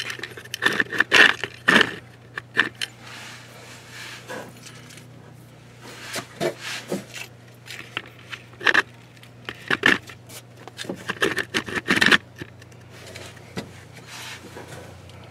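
Handling noise under a tractor: irregular clinks, knocks and scrapes as the camera is moved and hands work at the underside, over a faint low steady hum.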